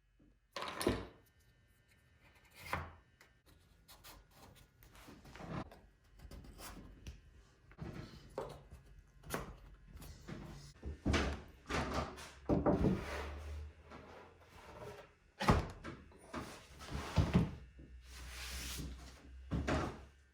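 Irregular knocks, thuds and short scrapes, like wooden objects being handled and set down.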